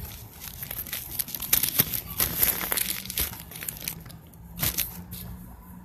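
Plastic food bag crinkling and rustling in a quick run of crackles, as bird food or bread is handled, with a faint steady low hum underneath.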